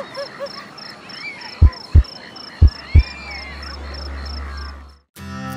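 Logo-animation sound design: a steady high chirping repeating about three times a second, with a few short croaking calls at the start, then four loud deep thumps in two pairs in the middle, followed by a low hum that cuts off suddenly near the end.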